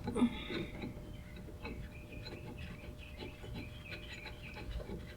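Faint, scattered light clicks and rubbing from hands handling small hardware: the bolts and parts of a steering-wheel quick release and hub adapter being fitted.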